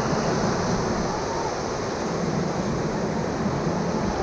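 Whitewater rushing steadily through a river rapid.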